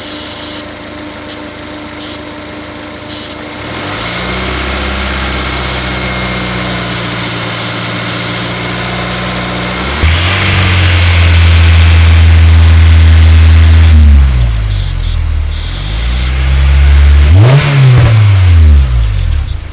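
Honda S2000's F22C four-cylinder engine, freshly run after a timing chain service, being revved while parked: it idles, steps up to a held higher speed about 4 s in, runs louder and higher from about 10 to 14 s, then drops and is blipped up and down two or three times near the end.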